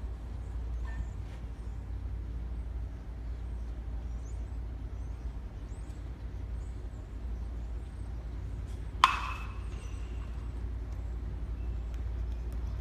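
A baseball bat hits a pitched ball once, about nine seconds in: a sharp crack with a brief ringing tone. Under it there is a steady low rumble.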